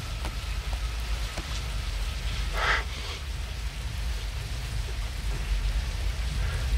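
Heavy rain pouring steadily over a deep, steady low rumble, with a brief louder rasp about two and a half seconds in.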